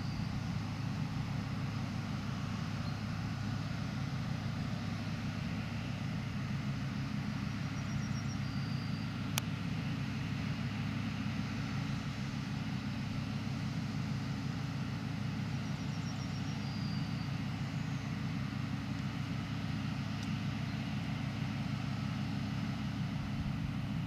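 New Holland CX 5090 combine harvester running steadily at working speed as it harvests and unloads barley: a continuous low engine drone that holds an even pitch and level. A single sharp click comes about nine seconds in.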